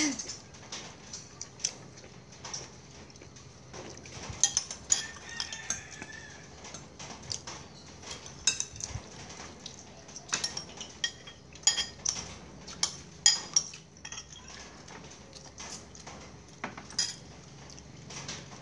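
Metal spoons clinking and scraping against china bowls and plates as food is spooned out, in short irregular clinks scattered throughout.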